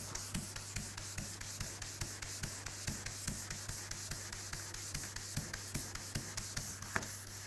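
Folded 400-grit sandpaper rubbed by hand over wet single-stage car paint in light, short strokes about two or three a second: wet sanding to cut back crazed, alligator-skinned paint.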